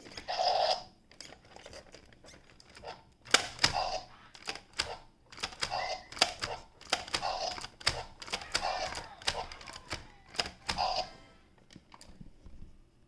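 Battery-powered T-rex toy's electronic roar playing in short, broken sputters, the coughing sound it makes when its batteries are low, mixed with many sharp clicks and knocks of the hard plastic toy being handled. The sputters and clicks stop a couple of seconds before the end.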